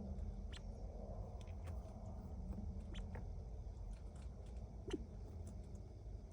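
California quail pecking and scratching at nesting material: scattered soft clicks and rustles, the loudest about five seconds in, over a steady low hum.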